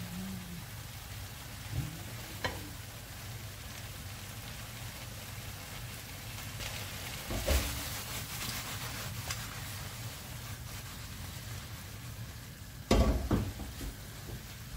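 Potatoes, sausages and tomato frying in a non-stick pan over a gas flame turned up high, sizzling steadily. A wooden spatula stirs and knocks against the pan a few times, loudest in a short cluster near the end.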